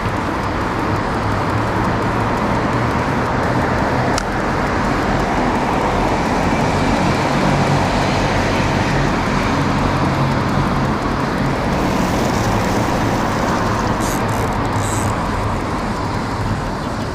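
A small boat's motor running steadily, with rushing noise over it. There is a single click about four seconds in and brief hissing near the end.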